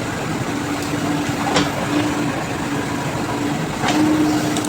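Diesel engine of heavy road-repair machinery, such as a JCB, running steadily with a droning tone, with a couple of short knocks.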